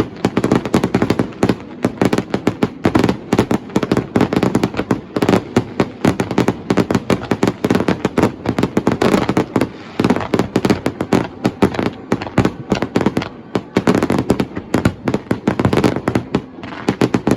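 Fireworks display in a dense barrage: many bursts and crackles a second, overlapping without a break, then stopping abruptly.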